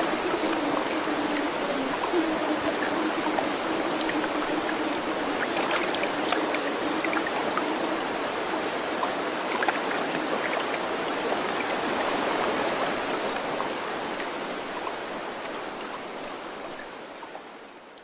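Steady rushing of running water like a stream, with small scattered droplet ticks, fading out over the last few seconds.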